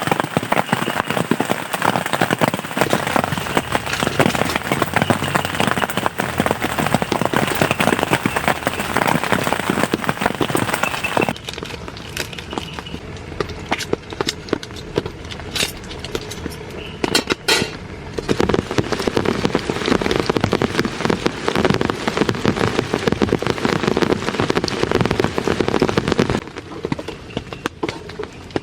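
Heavy rain falling, a dense patter of drops. About eleven seconds in it changes abruptly to a deeper, duller rush with a few sharp taps, and it shifts again near the end.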